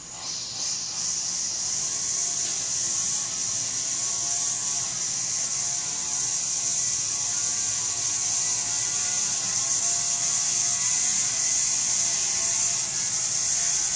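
Loud, steady high-pitched insect drone, swelling in about half a second in and holding unchanged.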